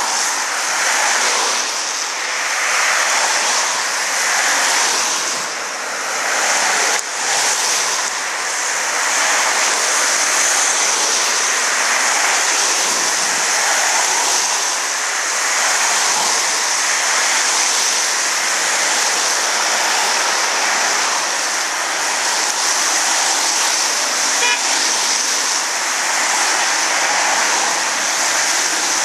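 A convoy of cars driving past close by, a loud steady rush of tyres and engines that swells and eases as each car goes by.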